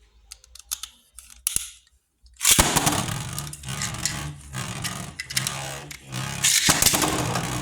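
Beyblade spinning tops, Storm Pegasus and Flash Sagittario, ripped off their launchers about two and a half seconds in, then spinning and clashing in the stadium: a steady scraping whir broken by irregular clacks, louder near the end. A few sharp clicks come before the launch.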